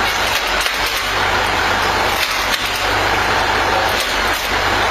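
Engine running steadily, driving a home-made screw-cone log splitter built from an axle and brake drum, while wood cracks and splinters in several short bursts as a log is forced onto the spinning cone.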